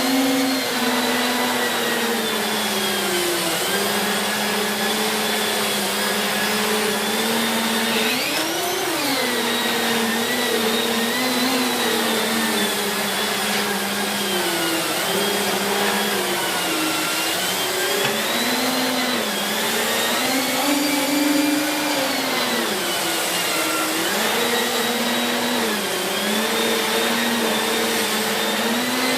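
Siemens Z6 Power 2500 W bagged cylinder vacuum cleaner running continuously while vacuuming. Its motor whine wavers up and down in pitch, with a brief sharp rise about a third of the way in.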